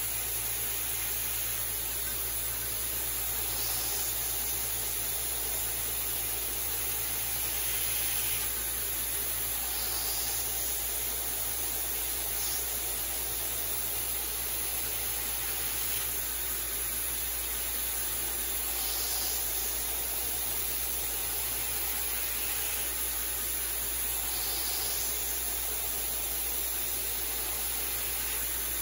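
Belt grinder running steadily under the hiss of a mist coolant system, while a 52100 steel knife blade is convex-ground against the belt over a felt-padded flat platen to thin its edge. A brief scraping swell comes every few seconds as the blade makes a pass.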